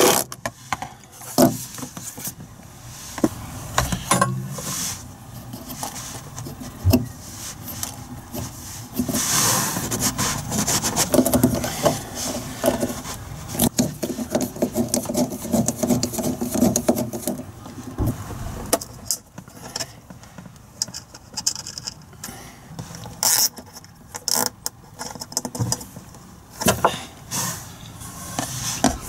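Hand-tool work on a heater's fuel-line fittings: a cordless drill-driver and a screwdriver tightening screws and hose clips, with scattered clicks, taps and knocks of tools on metal fittings. There is a busier stretch of motor or turning sound through the middle.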